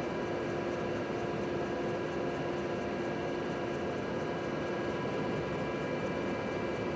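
Helicopter running in flight: a steady rush of engine and rotor noise with a few steady high whining tones over it.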